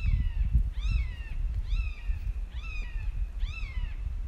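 A bird calling in a steady series, about five calls roughly a second apart, each call arching up and then dropping in pitch.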